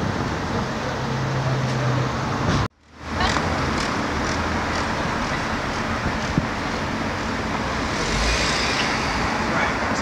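Steady city street traffic noise from passing cars. The sound cuts out briefly about three seconds in and fades back.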